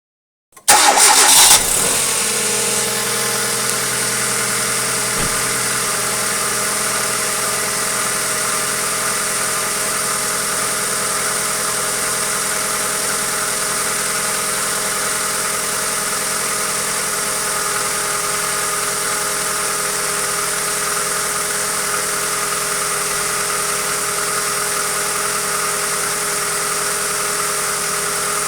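Hyundai Accent engine starting up about half a second in, with a brief loud burst, then settling into a steady idle. The owner is recording it for an engine knock.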